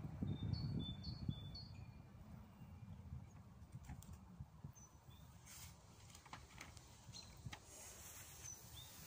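Faint outdoor ambience: small birds chirping in short high notes, several in the first two seconds and a few more later, over a low rustling rumble.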